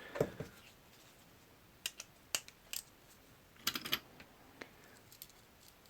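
Small metal lock parts and tools clicking and tapping against each other while a Medeco Duracam lock is being taken apart by hand. The clicks are faint and scattered, with a quick cluster a little before the four-second mark.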